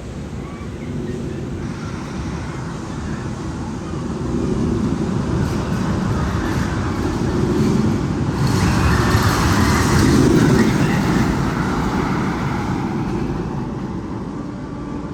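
A heavy rumble like a train passing, building up to its loudest about two thirds of the way through and then fading away.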